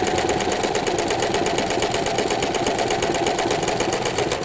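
Electric sewing machine fitted with a walking foot, stitching steadily at speed through two layers of fabric with a fast, even chatter of needle strokes. It stops abruptly near the end.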